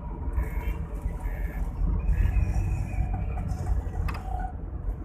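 Steady low rumble of a moving vehicle's engine and tyres on the road, heard from inside the vehicle, with faint traffic sounds around it.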